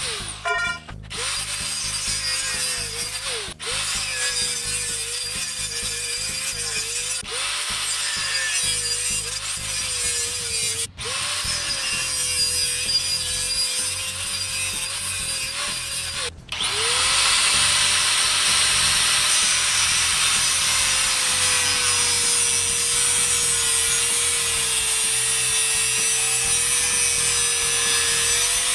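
Corded DeWalt angle grinder with a cut-off wheel cutting through steel EMT conduit. Its motor whine dips in pitch each time the wheel bites into the tube and recovers as it eases off, over a loud hiss of grinding. The sound breaks off briefly several times, and after about two-thirds of the way in it runs louder and steadier.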